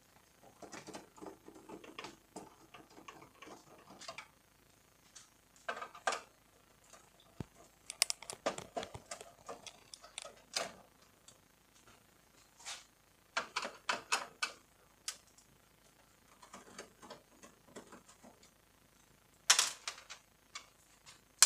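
A screwdriver backing screws out of an opened Canon iR2018 photocopier's plastic frame, with parts being handled. Irregular clicks, taps and small plastic clatters, loudest near the end.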